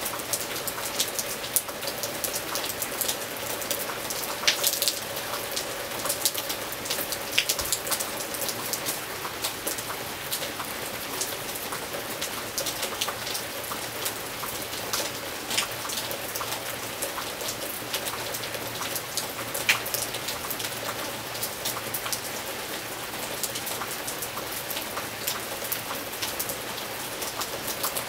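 Gentle rain falling steadily: an even hiss with many close individual drops landing as sharp ticks.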